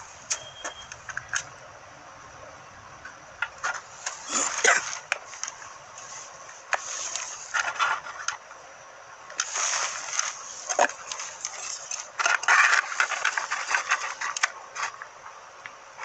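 Handling noise from hands on a plastic digital multimeter and a small wired potentiometer: scattered sharp clicks and bunches of scratchy rubbing and rustling that come and go.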